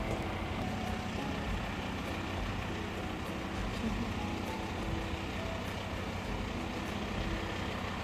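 Engines of stationary emergency vehicles idling: a steady, even low hum with no breaks.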